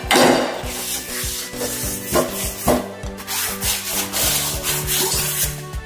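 A scrubber rubbing a stainless-steel gas stove burner ring that is coated in toothpaste foam, in repeated back-and-forth scrubbing strokes.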